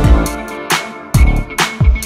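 Background electronic music with a beat of deep bass-drum hits that drop in pitch, sharp percussion and held synth notes.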